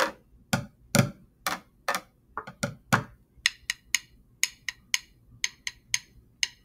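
Drumsticks practising a bucket-drumming rhythm: first a run of strikes on the bucket, about two a second, with a hollow thud. Then, about three and a half seconds in, quicker, lighter clicks of the two sticks knocked together.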